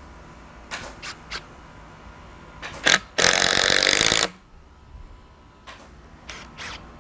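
A power drill-driver runs for about a second, driving a screw to attach the mounting blocking, with a few light clicks and knocks of handling before and after it.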